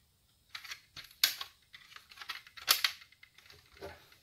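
Parts of a dismantled Pioneer DV-515 DVD player being handled: a few sharp clicks and light knocks, the two loudest about one and a half seconds apart.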